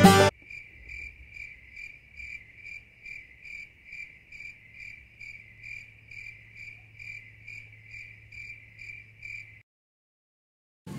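Rhythmic high-pitched chirping, about two to three evenly spaced chirps a second, over a faint steady low hum; it cuts off abruptly about a second before the end.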